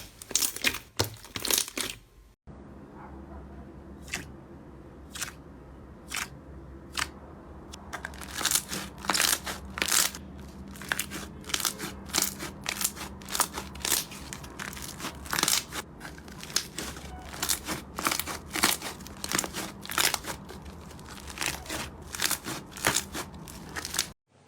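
Crunchy slime being squeezed and pressed by hand, giving a run of sharp crackling, popping clicks. The clicks are sparse for a few seconds after a change about two seconds in, then come thick and fast.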